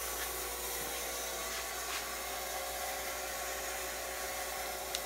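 A 400-watt party fogger running flat out: a steady hiss, with a faint steady hum under it, as the machine blasts fog through an ice-filled vortex fog chiller.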